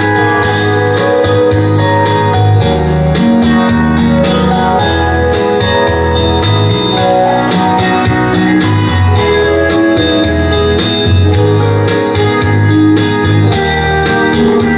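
Instrumental interlude of a Korean trot song: band accompaniment with a steady beat and bass line and held melodic notes, no singing.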